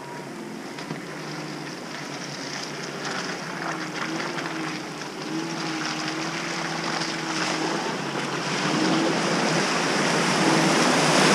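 Jeep Cherokee Trailhawk driving through a muddy, water-filled rut, its engine note rising and falling with the throttle while the tyres splash and slosh through the water. The sound grows steadily louder as the Jeep comes closer and pushes into the water.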